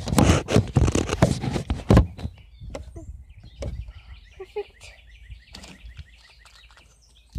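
Handling noise close to the microphone: loud rustling and clicking for about two seconds, then quieter scattered knocks.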